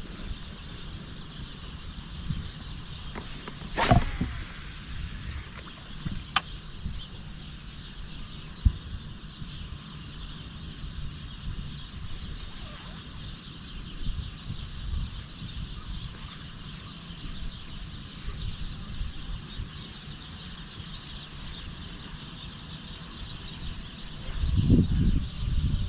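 Outdoor ambience dominated by wind rumbling on the microphone. A brief loud rush comes about four seconds in, a couple of sharp clicks follow, and a heavier low rumble comes near the end.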